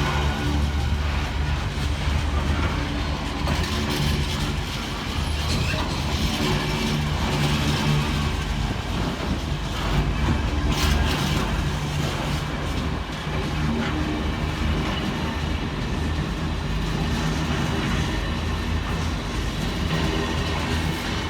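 Intermodal freight train rolling through the station, its container wagons clattering steadily over the rails, with a steady low diesel drone underneath.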